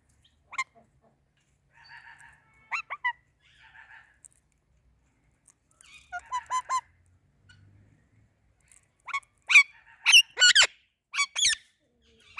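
Indian ringneck and Alexandrine parakeets screeching: short, sharp calls, some singly and a quick run around six seconds in, between softer chattering, then a loud burst of screeches over the last three seconds.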